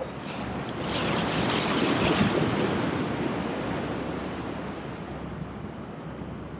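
Sea waves on the shore of a bay: one wave swells to its loudest about two seconds in and then washes out, with wind on the microphone.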